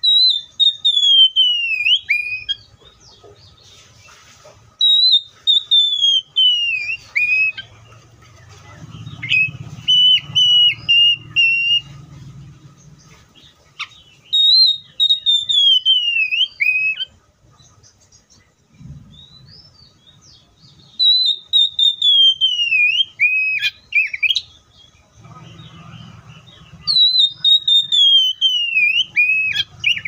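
Oriental magpie-robin singing: about six loud whistled phrases, each a couple of seconds long, most gliding down in pitch and ending in a quick twist, with short pauses between them.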